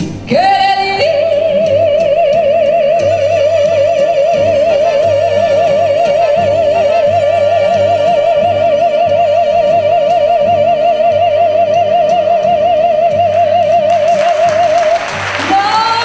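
A female mariachi singer holds one long high note with a wide vibrato for about fourteen seconds over backing music with a steady bass beat. Applause breaks in near the end as the note ends.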